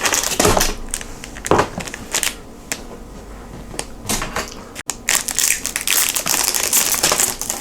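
Snack packaging crinkling and crackling as it is handled and torn open: a string of sharp crackles, sparser in the middle and denser near the end.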